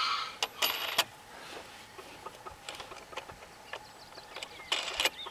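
Small metal clicks and rattles of wing nuts and penny washers being spun down by hand on bolts through a plastic coop door, loudest about a second in and again near the end.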